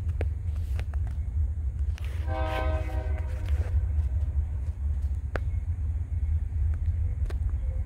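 Air horn of a distant, approaching Union Pacific locomotive sounding one chord blast of about a second and a half, a couple of seconds in, over a steady low rumble and a few sharp clicks.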